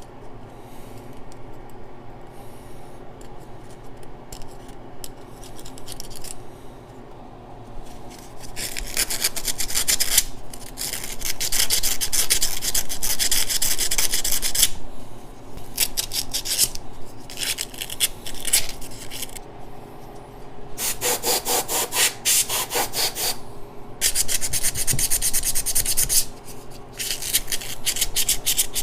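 Razor blade scraping old gasket material off a metal flange in quick repeated strokes. It is faint and sparse for the first several seconds, then turns into loud rasping runs of a few seconds each, with short pauses between.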